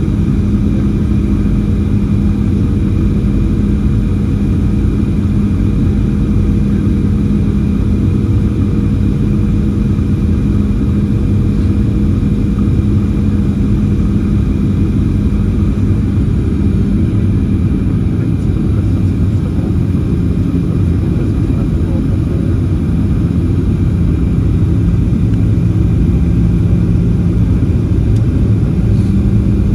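Cabin noise of a Boeing 737-700 on approach, heard from a window seat over the wing. The CFM56-7B engines and the airflow make a loud, steady low rumble with a constant hum.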